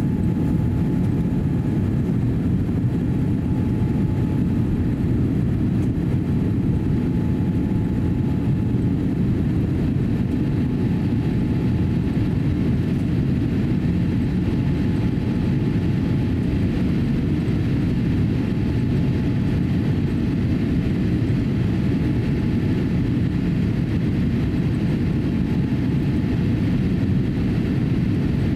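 Steady cabin noise inside a Boeing 787-8 airliner climbing after takeoff: the deep, even rush of its GEnx engines and the airflow over the fuselage, with a faint steady hum above it.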